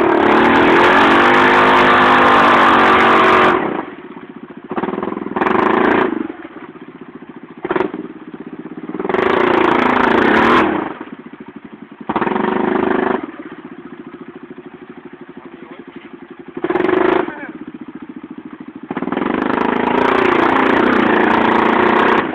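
ATV engine revving hard in about six bursts while the quad sits in a mud hole, falling back between bursts to a quieter, evenly pulsing idle.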